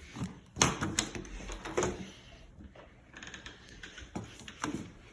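A door latch and handle being worked, making several sharp clicks and knocks; the door is locked.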